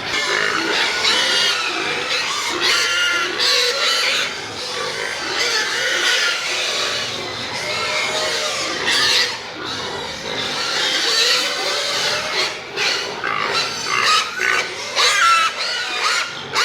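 Several pigs squealing and grunting at once, their high cries overlapping without a break, with a run of louder short squeals near the end.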